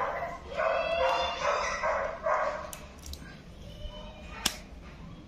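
A dog barking and yipping in a quick run of about six short calls in the first two and a half seconds. After that, a few sharp clicks from handling a plastic bottle cap, the loudest about four and a half seconds in.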